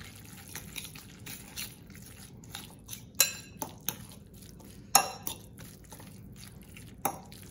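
Two metal forks clinking and scraping against a glass mixing bowl as shredded pork is tossed with barbecue sauce. There are many light clicks and a few sharper clinks, about three, five and seven seconds in.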